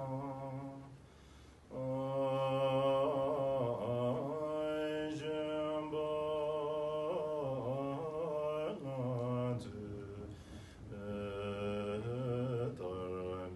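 A man's low voice chanting a Tibetan Buddhist prayer in long held notes, with a few wavering turns in pitch. He pauses briefly about a second in and drops quieter for a moment near ten seconds before carrying on.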